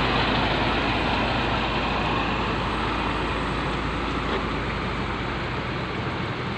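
Heavy box truck's engine running as it drives slowly past at close range, the sound easing off gradually as it pulls away.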